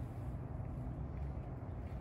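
Steady low outdoor rumble with no bird calls.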